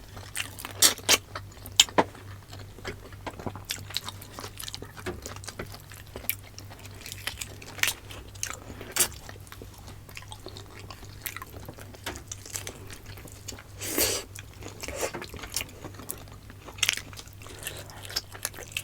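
Close-up mouth sounds of eating: chewing with irregular wet smacks and small crunches, a few louder bites scattered through. A steady low hum sits underneath.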